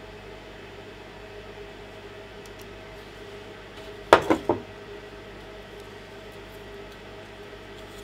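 A handheld magnifier set down on a hard desktop: three quick knocks within about half a second, the first the loudest, each ringing briefly. A steady low hum runs underneath.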